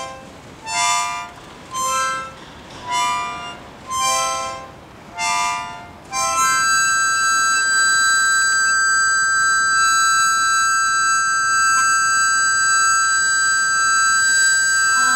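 Harmonica played without a melody: short chords puffed about once a second, then from about six seconds in one long chord held steady.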